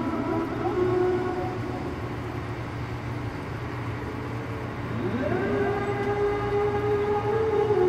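Isha call to prayer (adhan) sung by a muezzin and carried over loudspeakers. A held phrase ends about a second in; after a pause a new phrase opens with a rising glide into a long held note.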